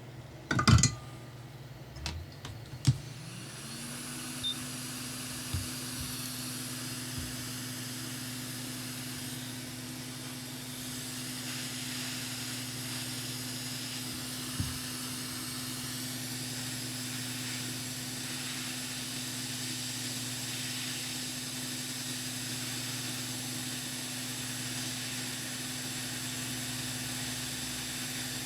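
A few clicks and knocks of handling, then a small electric tool's motor starts about three seconds in, spins up quickly to a steady hum with an airy hiss, and runs on evenly.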